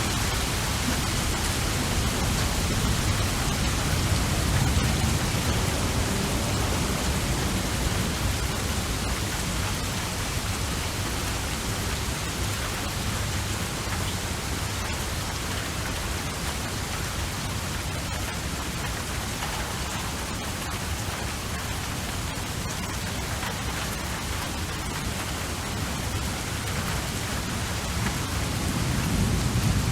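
Steady rain, an even dense hiss, with a low rumble swelling briefly about five seconds in and again near the end.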